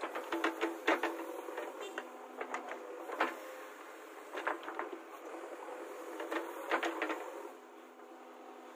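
JCB 3DX backhoe loader digging: its diesel engine runs steadily while the arm and bucket make sharp clanks and knocks in clusters every couple of seconds as they bite into and lift the soil.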